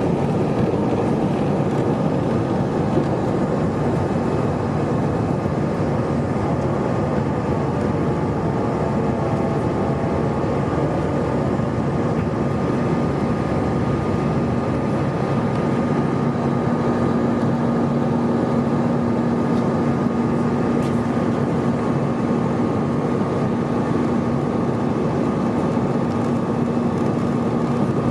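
Loud, steady machine noise, like a vehicle running, with a steady low hum that comes in about halfway through.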